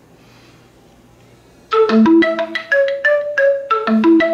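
Phone ringtone for an incoming call: a marimba-style melody of short, quick notes that starts about a second and a half in, its phrase beginning again about two seconds later.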